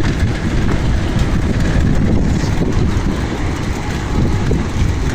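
Steady low rumble of wind buffeting the microphone and road noise from a moving bicycle, with no clear separate events.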